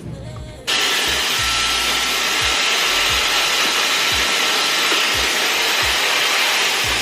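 Handheld hair dryer switched on about a second in and blowing steadily at full speed, with a faint motor whine, over background music with a thumping beat.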